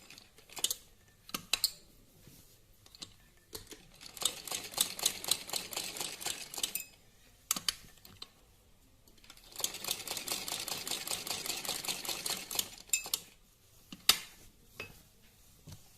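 Sewing machine stitching in two runs of rapid, even needle strokes of about three seconds each, one in the first half and one in the second, with a few separate sharp clicks between them.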